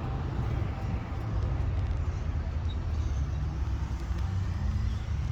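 Car engine running with a steady low rumble: the loud engine noise the customer has complained of.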